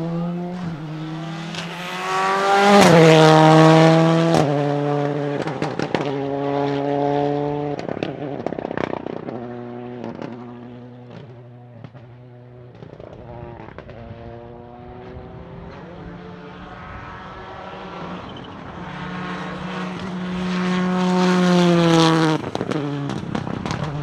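Toyota Corolla WRC's turbocharged four-cylinder rally engine accelerating hard through the gears, the pitch climbing and dropping back at each upshift, with sharp anti-lag pops and bangs. It fades into the distance around the middle, grows loud again as it revs out near the end, and then lifts off.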